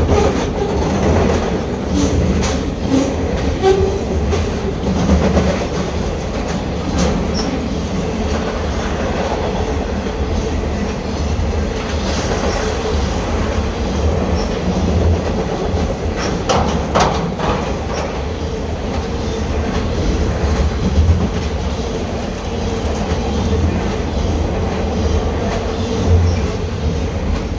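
Norfolk Southern intermodal freight train's container and trailer cars rolling over a steel deck girder bridge, a steady rumble broken by irregular clicks and clacks as the wheels pass the rail joints.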